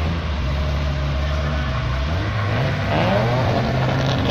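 A car engine running loudly as the car drives down the track. The engine note rises about three seconds in as it accelerates.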